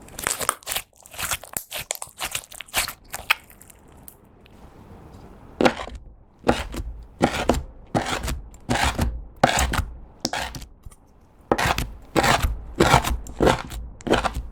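Slime being squeezed and mixed by hand, making crunchy, crackling squishes. A quick run of them comes first, then a short pause, then steady strokes about twice a second, many with a dull thump underneath.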